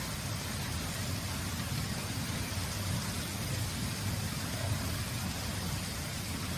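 Steady background noise: an even low rumble with a hiss over it, unchanging throughout.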